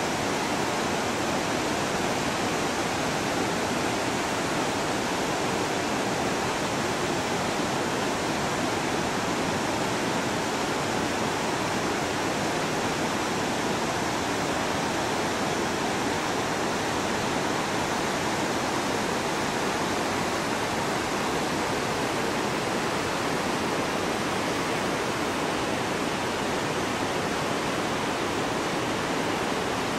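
Steady, even rush of the fast, silty Ganga river in torrent, pouring over and around large boulders.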